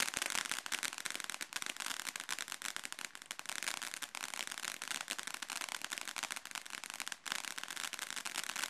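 Fireworks crackling: a dense, rapid rattle of many small sharp pops, fairly even in level, with no single big bang.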